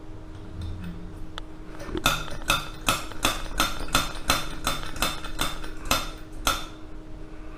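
About a dozen sharp metallic clicks, evenly spaced at roughly three a second, each with a short ring, made at the burner of a vintage brass gasoline blowtorch as it is being lit. A steady low hum runs underneath.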